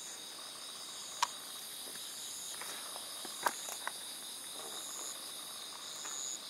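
Night insects chirring steadily, several high-pitched trills overlapping. A few short sharp clicks come about a second in and twice around three and a half seconds in.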